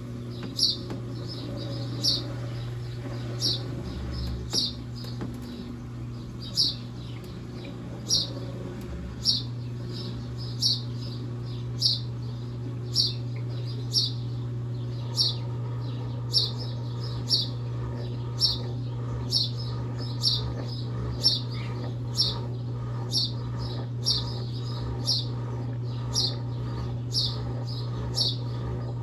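Brastemp Double Wash washing machine's motor humming steadily in an intermediate spin, with a short high-pitched chirping squeak once per turn. The squeak comes a little faster as the spin picks up, from about every second and a half to about once a second.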